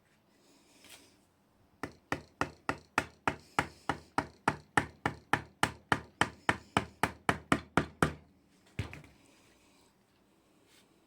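Wood being struck repeatedly, a steady run of sharp knocks at about four a second for some six seconds, then one last knock: a wooden castle joint being tapped together.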